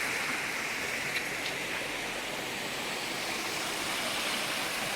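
Steady rush of hot spring water flowing down the canyon.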